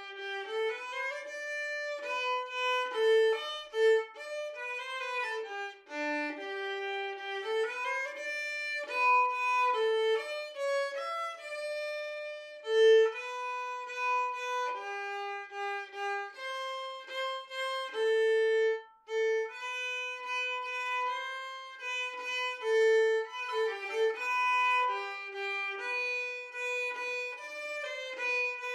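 Background music: an unaccompanied solo melody on a bowed string instrument, held notes joined by slides.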